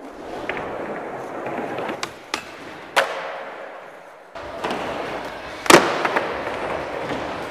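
Skateboard wheels rolling over indoor park ramps and concrete, with several sharp clacks of the board striking the surface. The loudest, a hard smack of the board landing, comes a little past two thirds of the way in.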